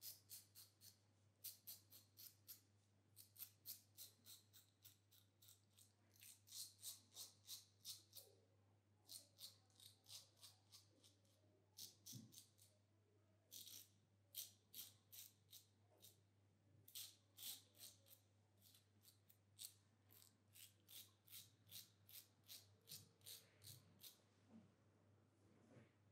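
Safety razor scraping stubble through shaving cream in quick short strokes, each a crisp rasp, coming in runs of several strokes a second with brief pauses between runs. A steady low hum lies underneath.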